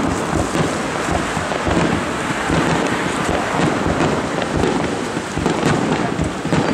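Aerial fireworks shells bursting in quick succession, overlapping booms and crackling merging into a continuous dense rumble.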